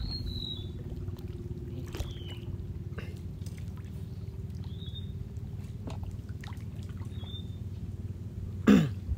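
Small outrigger boat being paddled, with water trickling and lapping and a steady low hum. Short high bird chirps come every couple of seconds, and a brief loud sound falling steeply in pitch comes near the end.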